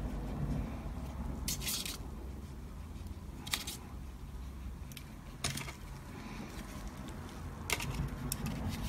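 A few short scratchy dabs and small clicks, a second or two apart, from a brush working alcohol ink on the painting surface and ink bottles being handled, over a steady low hum.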